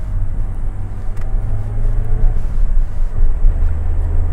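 Nissan S12 Silvia's CA18DET 1.8-litre turbo four-cylinder running on the road, a steady low rumble of engine and road noise with a faint engine note above it. There is a light click about a second in, and the low drone shifts about three seconds in.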